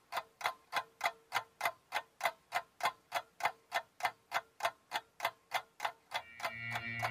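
Steady ticking like a clock, about three ticks a second. Near the end, sustained music chords fade in and the ticking fades out.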